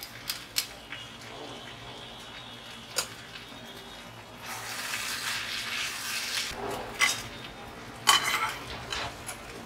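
Cooked basmati rice being spooned into a steel wok of stir-fried vegetables: scattered clinks and knocks of the spoon against the wok and pot, with a soft hiss for about two seconds in the middle. A louder clatter comes near the end.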